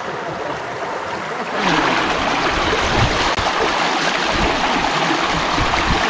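Mountain valley stream rushing steadily. It grows louder and fuller about a second and a half in.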